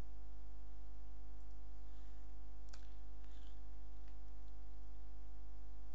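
Steady electrical mains hum with a ladder of higher overtones, with a few faint clicks near the middle.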